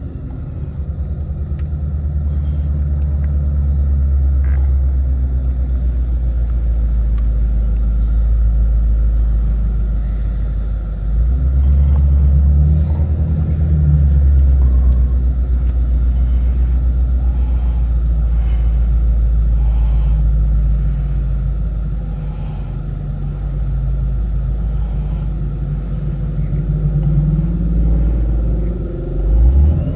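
Ford Shelby GT350's 5.2-litre flat-plane-crank V8 running under way, heard from inside the cabin as a steady low exhaust drone, with its active exhaust valves open in track mode. The drone grows louder about eleven seconds in and swells briefly near the end.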